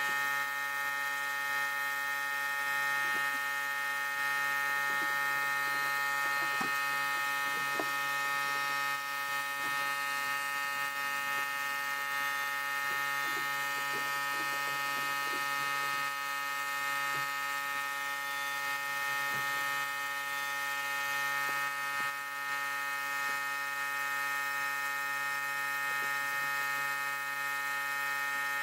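Small electric power tool's motor running steadily at constant speed, a dense even whine, with faint scattered scraping ticks as it works the rusty metal parts.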